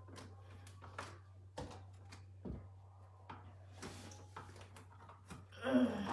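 Scattered light knocks and clicks as someone moves about on a wooden train-layout table and among the model trains, over a steady low hum. A short voice sound, the loudest moment, comes near the end.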